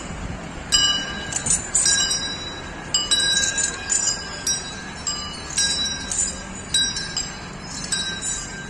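Metal bells worn by walking elephants clinking and ringing irregularly, a few bright strikes a second in no steady rhythm.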